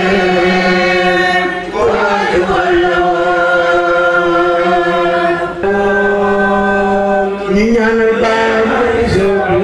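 A man's voice chanting unaccompanied, holding long sustained notes in phrases of a few seconds, each note sliding into the next at the phrase breaks.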